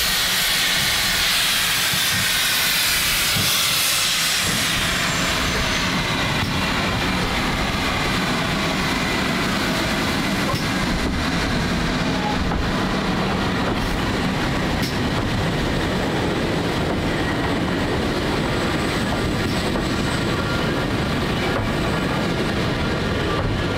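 GWR Castle class 4-6-0 steam locomotive 4079 'Pendennis Castle' moving off with its cylinder drain cocks open, a loud hiss of steam for the first few seconds. The engine and its tender then roll slowly past on the rails with a steady rumble.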